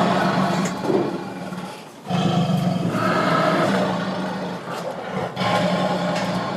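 Tiger growling loudly in long, drawn-out growls that break off briefly about two seconds in and again just past five seconds.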